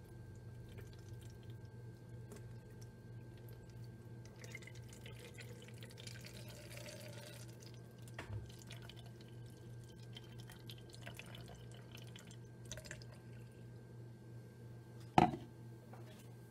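Vinegar poured from a plastic measuring cup into a plastic jug: a faint trickle and drips, over a steady low hum. A sharp knock near the end as the measuring cup is set down on the counter.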